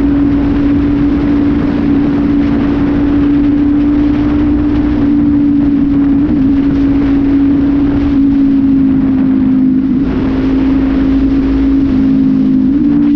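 Honda CB500F parallel-twin motorcycle engine running at a steady cruising speed through an aftermarket exhaust with the air filter removed, a loud, even drone. Its note dips briefly a couple of times and steps slightly near the end.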